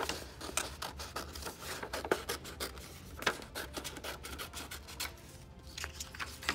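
Scissors cutting through construction paper: a quick, uneven run of snips and crisp paper crunches that thins out over the last two seconds.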